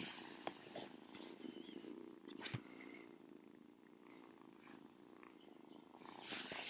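Domestic cat purring steadily and softly, with a few sharp clicks and a brief rustle near the end.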